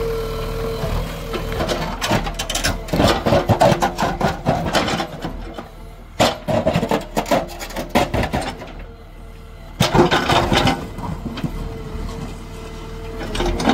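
JCB 3DX backhoe loader digging, with three spells of crunching and cracking from the digging over a steady hum.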